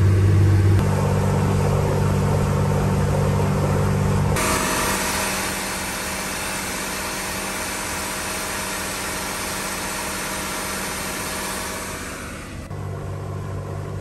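Yamaha MD629KUH 350 hp inboard marine diesel running steadily at about 2000 rpm, driving the boat at about 20 knots, with a deep drone. About four seconds in the sound turns hissier and brighter with many steady tones. Near the end it drops back to the lower drone.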